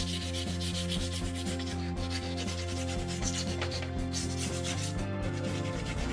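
Sandpaper rubbing in repeated strokes over the painted body shell of a scale RC Jeep Cherokee, wearing through the paint for a faded patina. Background music with steady low notes plays underneath.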